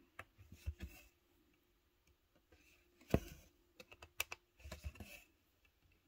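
Soft, scattered clicks and taps of hand cross-stitching: a needle pushed through stamped cross-stitch canvas and floss drawn through, with one sharper click about three seconds in.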